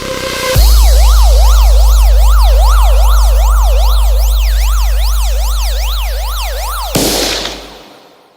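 Police-siren yelp sound effect in a DJ bass track: a tone sweeping rapidly up and down about twice a second over a heavy, sustained sub-bass drone. About seven seconds in, the siren cuts off into a short noise burst and the bass fades out.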